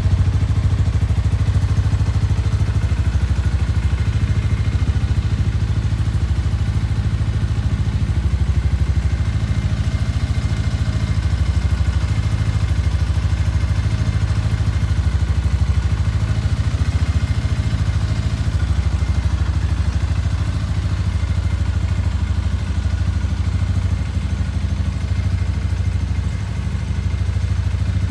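Shelby Renz 200 (Ninja 200 replica) motorcycle engine idling steadily with a low, even beat.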